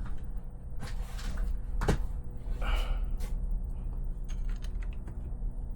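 Small RC car parts and tools being handled at a workbench: a few sharp clicks and knocks, the loudest about two seconds in, a brief rustle around three seconds, then light ticks. A steady low hum runs underneath.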